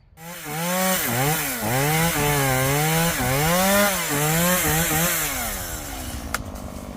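Two-stroke chainsaw revving, its pitch rising and falling again and again as the throttle is worked, then dropping back to a lower, quieter run near the end, with a sharp click shortly before the end.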